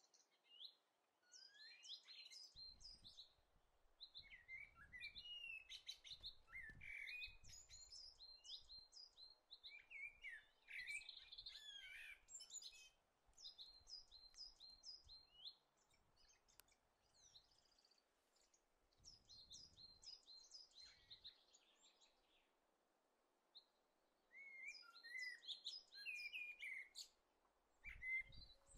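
Songbirds chirping and singing faintly in short, quickly repeated phrases of high notes, with pauses between phrases. Near the end there is one short low thump.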